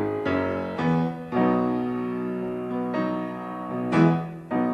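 Slow, tender piano introduction to a song: a series of chords struck and left to ring, the loudest about four seconds in.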